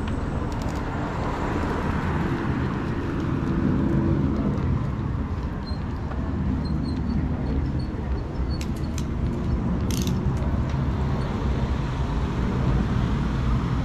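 Road traffic on a city street: motor vehicles passing with a steady low hum of engines and tyres.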